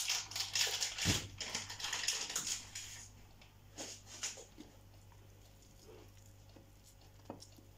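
Plastic packaging of white cheese being opened, crinkling and rustling for about three seconds, then a few faint clicks.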